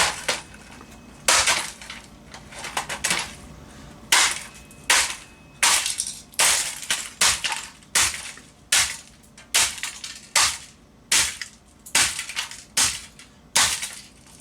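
A Canon ES270 8mm camcorder being smashed with a long series of hard blows, each followed by a short crunching crackle as the casing breaks up. The strikes are irregular at first, then fall into a steady rhythm of slightly more than one a second from about four seconds in.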